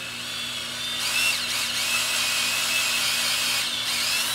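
Cordless drill spinning a coring and stripping tool on the end of .750 P3 foam-filled hardline coax, cutting away the foam dielectric. The motor whine and cutting noise grow louder about a second in, then hold steady.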